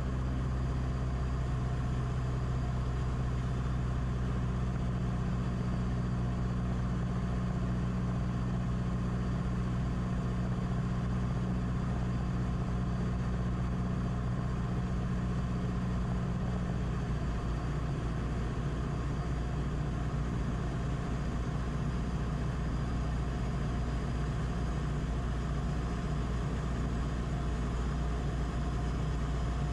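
Beechcraft Musketeer's piston engine and propeller running steadily, heard from inside the cockpit; the engine note shifts slightly a little past halfway.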